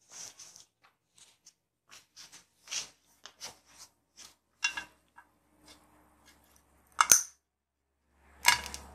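Small clicks and rustles as a screwdriver and earth lead are worked around the rubber anode cap of a CRT TV picture tube. About seven seconds in comes one sharp, loud snap as the earthed screwdriver goes under the cap to discharge the tube's high-voltage anode, and a scraping shuffle follows near the end.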